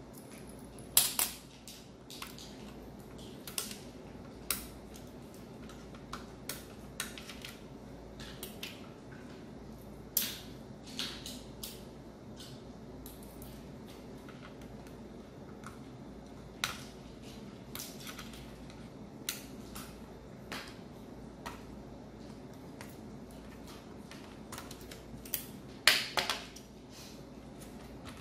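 Scattered small clicks and taps of hands working on the plastic and metal parts of an opened laptop, with the loudest clusters about a second in and near the end, over a steady low hum.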